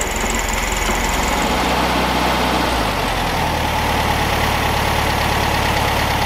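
Air-cooled flat-four engine of a classic VW Beetle idling steadily just after starting, running on a newly fitted fuel pump and fuel pressure regulator.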